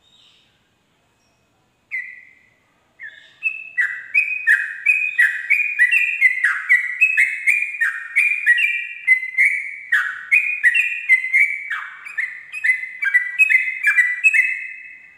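Yellow-vented bulbul (trucukan) singing. Two single notes come about two and three seconds in, then a fast, unbroken run of repeated phrases, the long 'ropel' song, that carries on through the rest.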